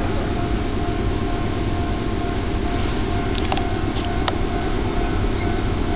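Steady low rumble and hiss of a railway station platform as a train approaches in the distance, with a faint steady tone and a few light clicks about three and a half to four seconds in.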